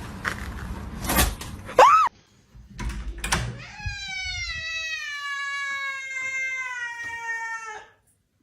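Cat meowing: a short arching meow about two seconds in, then a long drawn-out yowl from about four seconds, slowly falling in pitch and cutting off suddenly. Rustling and knocks come before the yowl.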